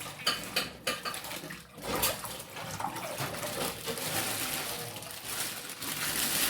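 Water running and splashing, with several sharp knocks and clinks in the first two seconds.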